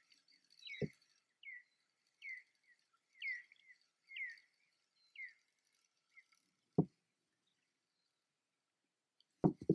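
A bird calling: a short chirp repeated about once a second for five seconds. About seven seconds in comes a single sharp knock.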